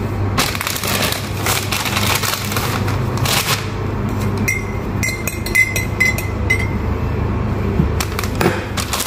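A teaspoon clinking against a glass as tea is stirred: a run of about six bright clinks, each with a short ring, about halfway in. A steady low hum and some handling rustle run underneath.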